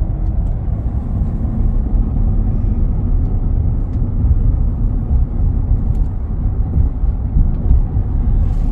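Car driving on the road, heard from inside the cabin: a steady low rumble of engine and tyre noise.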